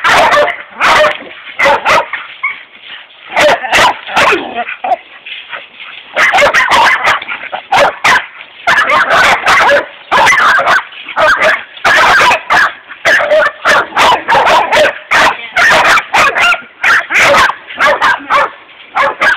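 Several hog dogs barking loudly and rapidly at a boar hog they are holding at bay, barks overlapping in quick succession with a short lull about five seconds in.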